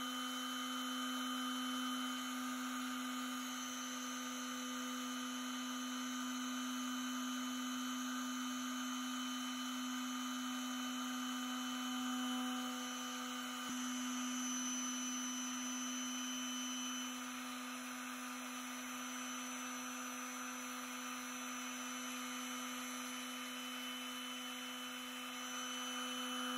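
Makita orbital sander running as a mixer, shaking a plastic cup of viscous zinc oxide–PVP solution taped to its pad: a steady motor hum at constant pitch.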